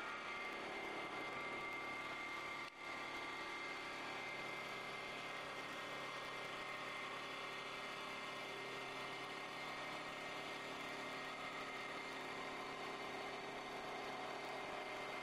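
CNC wood lathe running and shaving a spinning wooden bat blank: a steady machine whine over the hiss of the cutter taking off wood. It drops out briefly about three seconds in.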